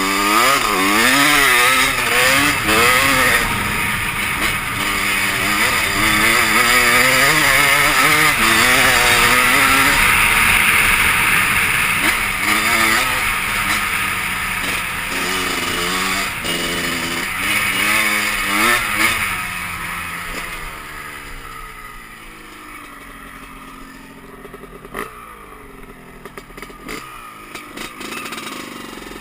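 Dirt bike engine being ridden hard, its pitch rising and falling over and over with the throttle and gear changes. About twenty seconds in it fades as the bike moves off, leaving it quieter with a few sharp clicks.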